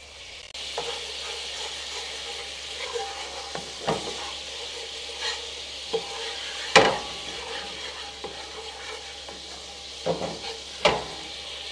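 Thin caramel and lemongrass sauce simmering and sizzling in a nonstick pan while a wooden spatula stirs it. The spatula scrapes the pan and knocks sharply against it a few times, loudest about seven seconds in.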